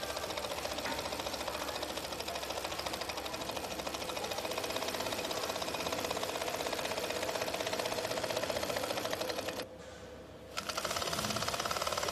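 DOIT DT 008-25064P/VSC direct-drive 25-needle cylinder-bed double chainstitch sewing machine running at speed, a rapid, even clatter of needle strokes. The sound drops out for about a second roughly ten seconds in, then the machine's running resumes.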